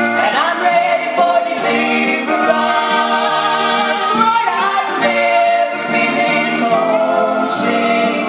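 Gospel singing group, several voices singing a song together in harmony.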